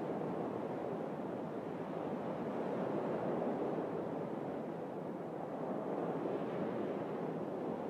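Sea waves washing on the shore, a steady rushing wash that swells and eases gently.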